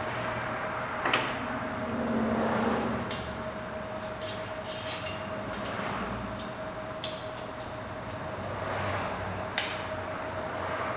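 Sharp metal clinks and taps, about a dozen at irregular intervals, as a long magnetic socket tool and its socket and bolt are handled and fitted, over a steady hum.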